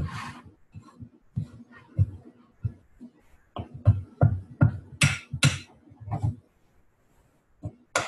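Thick cookie dough being stirred by hand in a mixing bowl: irregular dull thumps and knocks of the stirring utensil against the bowl, coming faster in the middle, with a short pause near the end.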